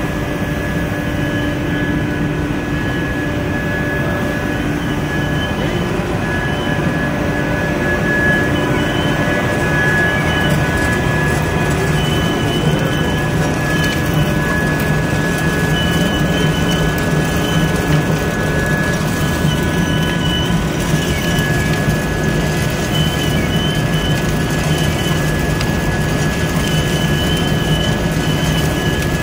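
Biomass pellet production line running: vertical ring die pellet mill and feed conveyor giving a steady loud machinery noise. A constant high whine and low hum run through it, and a higher whistle comes and goes.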